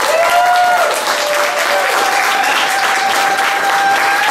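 A small audience clapping and cheering, with long held whoops rising above the applause.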